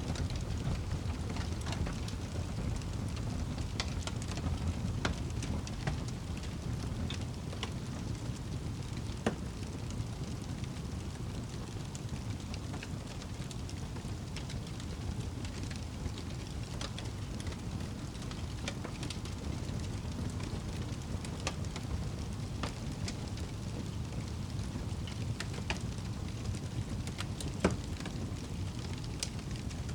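Wood fire burning in a fireplace: a steady low rumble of the flames with scattered crackles and pops, one sharper pop near the end.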